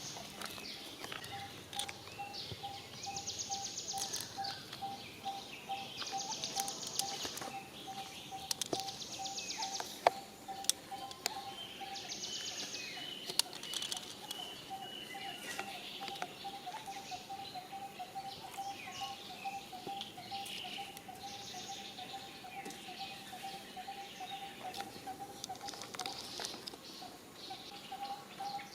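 Wild outdoor ambience: a steady, rapidly repeated mid-pitched call from a bird or insect runs throughout, with several short high-pitched buzzing trills in the first half and scattered light clicks and rustles.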